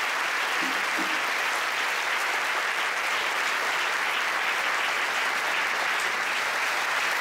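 Large audience applauding, a steady dense clapping that holds at an even level.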